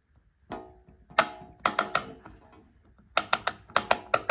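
Hand ratchet worked back and forth, its pawl clicking over the gear teeth. A few separate clicks come first, then quicker runs of clicks in the second half, which let the ratchet's tooth count be heard.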